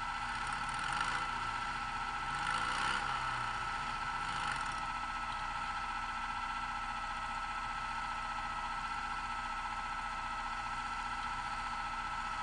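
Off-road racing buggy engines idling with a steady hum. Three short louder swells come in the first few seconds, like brief revs.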